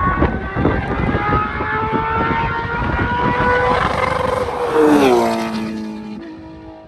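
Rally car approaching flat out, its engine note climbing slowly with sharp pops, then passing close about five seconds in with a sudden drop in pitch and fading away.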